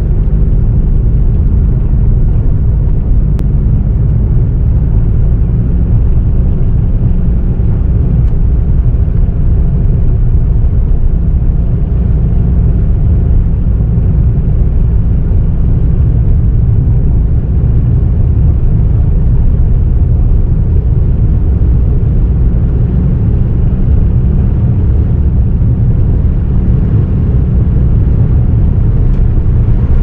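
Car driving through a snowstorm: a loud, steady low rumble of tyres, engine and wind that runs without a break.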